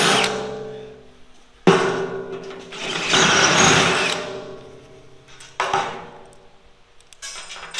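Cordless drill running a twist bit through steel plate in three bursts, reaming out a bolt hole that is just barely out of line. Each burst starts abruptly and winds down as the motor coasts to a stop, the longest lasting about three seconds.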